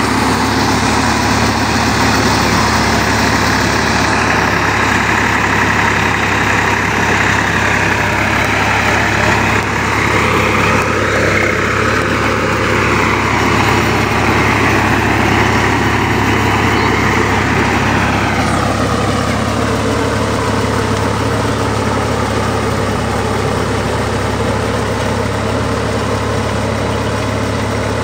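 Swaraj 855 tractor's diesel engine running steadily and loudly. About two-thirds of the way through, the higher part of the sound eases off and the engine settles to a lower, steadier note.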